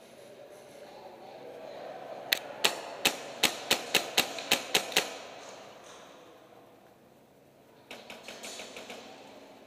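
Airsoft rifle firing about ten sharp single shots in quick succession over under three seconds, then a shorter, quieter volley of rapid shots near the end.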